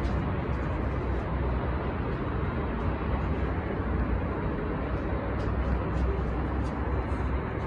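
Steady low rumble of city traffic noise heard from high above the streets.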